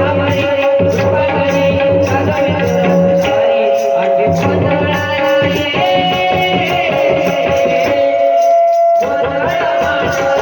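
A Marathi gondhal devotional song: held sung or instrumental notes over a steady hand-drum rhythm.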